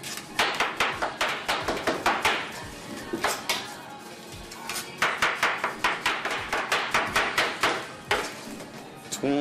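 Knife chopping a peeled watermelon into cubes on a plastic cutting board: rapid knocks of the blade striking the board, about six a second, in two quick runs with a slower stretch in between.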